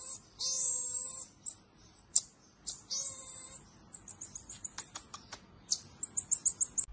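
Baby marmoset calling with long high-pitched whistles, three or four of them in the first half. These are followed by quick runs of short chirps, several a second, near the end.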